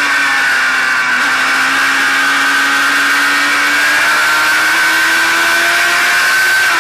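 Race car engine under power, heard close up from the car's own hood, its note dipping slightly through the turn about a second in and then rising as the car accelerates onto the straight.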